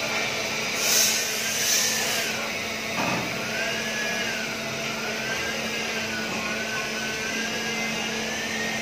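Steady drone of workshop machinery, with a low hum and a whine that slowly wavers up and down. Two short hisses about one and two seconds in, and a short dull bump about three seconds in.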